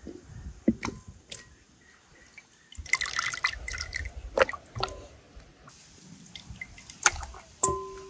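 Marinade dripping and splashing back into a glass bowl as a raw whole chicken is lifted out of it, with wet clicks of the meat being handled. Near the end there are two sharp knocks, the second one ringing briefly, as the chicken is set down on a metal tray.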